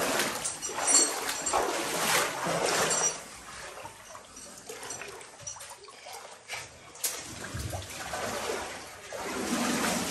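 Wading steps through shallow standing water, each step splashing and sloshing. The splashing is loudest over the first few seconds, quieter in the middle, and picks up again near the end.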